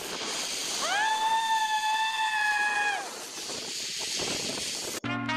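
A steady hiss with a whistle-like tone that rises in pitch about a second in, holds steady for about two seconds, then drops away.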